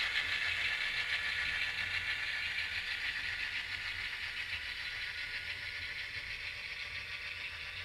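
Pair of HO-scale Chessie System model diesel locomotives running, with diesel engine sound from their onboard speakers. The sound slowly fades as they move away.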